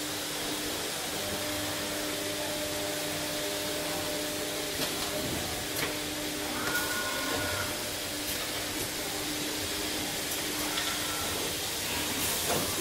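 Woodworking CNC machinery running: a steady hiss with a low hum under it, a few light clicks, and two short high tones about seven and eleven seconds in.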